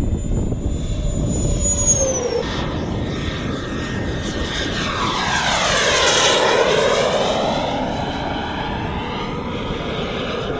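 Turbine engine of a radio-controlled scale jet flying past with a steady whine. A high tone drops in pitch about two seconds in. The sound swells to its loudest around six seconds in with a sweeping, swirling quality as the jet passes close, then eases off.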